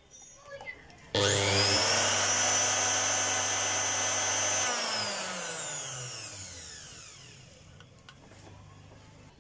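Mixer grinder's brushed electric motor switched on, running at full speed with a steady high whine, then switched off about five seconds in and winding down, its pitch falling as it coasts to a stop.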